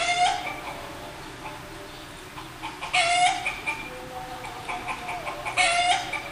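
Chickens calling on a film soundtrack played through a lecture hall's speakers: three loud calls, one near the start, one about three seconds in and one near the end, over a busy farmyard background.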